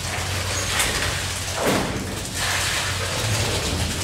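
A running engine with a steady low hum, and clattering and knocks over it.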